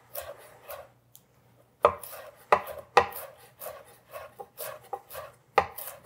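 Chef's knife chopping fresh dill on a wooden cutting board: a run of irregular knocks, pausing briefly about a second in, then starting again with a few louder strikes.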